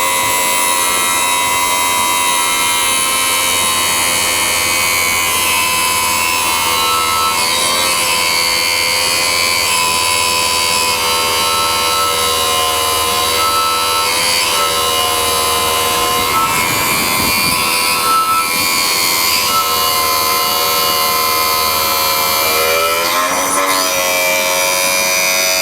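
End mill sharpening machine running its grinding wheel against an end mill's cutting edge: a steady motor whine over a high grinding hiss, its pitch dipping slightly a few times as the wheel bites.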